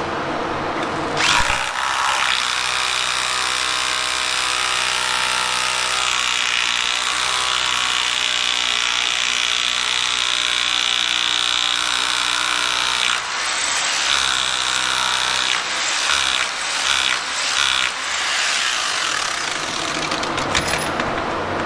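Corded hammer drill boring a pilot hole through the wooden bottom plate into the concrete slab for a Tapcon anchor. It starts about a second in and runs steadily for about twelve seconds, then goes on in a string of short bursts, starting and stopping.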